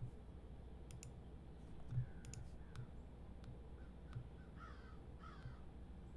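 Quiet room tone with scattered soft clicks and a few faint, short bird calls, about two seconds in and again around five seconds.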